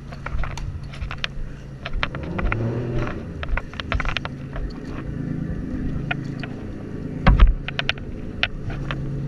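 A lifeboat's engine runs steadily underneath frequent knocks and clatter from the tow rope and deck fittings being handled. There is one loud thump about seven seconds in.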